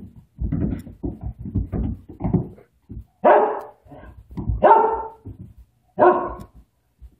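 An irritated dog barks three times at a cat, loud and about a second and a half apart, in the second half. Before the barks comes a run of low thumps and scuffles as the cat pounces and scrambles on a rug over a tile floor.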